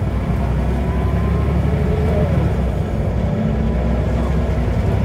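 Scania N94UB Omnicity bus under way, heard from inside the saloon: its Scania DC9 9.0-litre diesel and ZF Ecomat 5-speed automatic driveline make a steady, loud engine drone, with faint whining tones that drift slightly in pitch.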